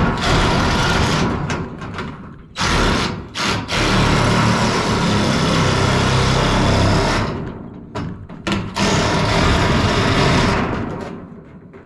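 Power metal shear cutting ribbed steel roofing panel, running in several bursts: a short one at the start, a long run of about four seconds in the middle, then a few shorter bursts that stop shortly before the end. The raised ribs of the panel are hard to cut through.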